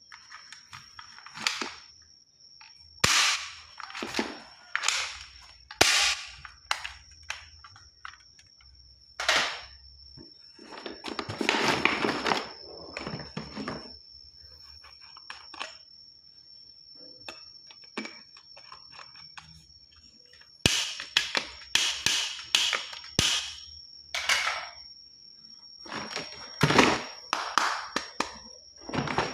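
Plastic toy guns being handled and worked: an irregular series of sharp clicks, snaps and knocks, with stretches of rustling between them, over a steady faint high-pitched whine.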